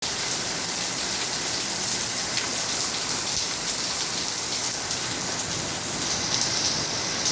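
Steady heavy rainfall, a constant hiss of rain striking surfaces with scattered individual drop ticks.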